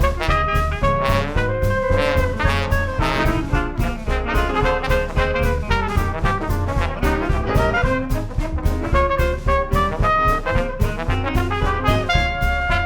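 Traditional New Orleans jazz band playing: trumpet and trombone lines over piano, bass and drums keeping a steady beat.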